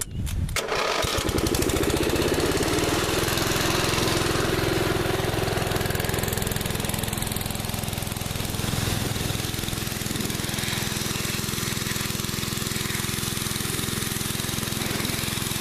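Ten-horsepower small gas engine catching just after a pull start and revving up over a second or so, then running steadily at full speed, working hard driving a belt-driven pressure washer pump.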